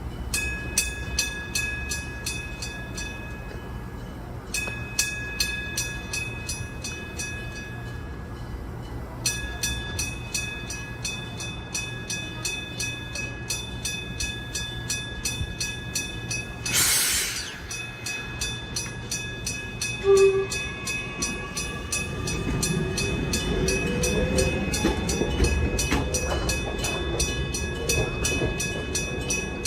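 Japanese railroad crossing warning bells ringing in a steady repeating rhythm, breaking off briefly twice in the first nine seconds. A short hiss comes about seventeen seconds in, then a brief loud tone. From about twenty-two seconds a train rumbles past with wheel clatter under the ringing bells.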